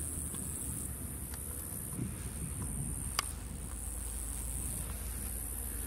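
Insects chirring steadily in the grass, a high shrill band that swells and eases every second or two, over a steady low rumble. A single sharp click about three seconds in.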